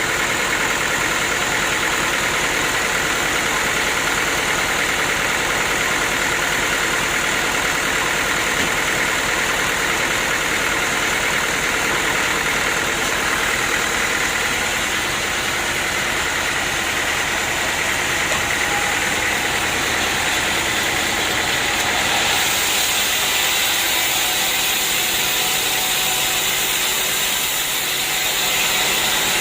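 Portable sawmill's engine running steadily. About 22 seconds in the sound turns brighter and hissier.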